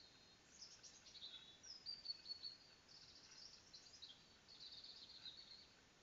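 A songbird singing a faint, varied song of high whistles and quick trills, phrase after phrase, stopping near the end.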